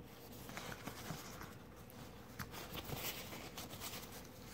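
Faint rustling and scratching of a paper towel wiping a steel knife liner, with small scattered clicks from the parts being handled.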